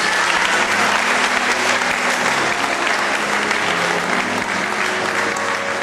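Large audience applauding, a dense steady clapping that holds at an even level.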